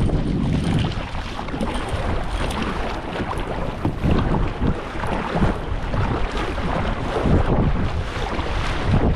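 Kayak paddle blades dipping and splashing in choppy sea water in repeated strokes, with wind buffeting the microphone.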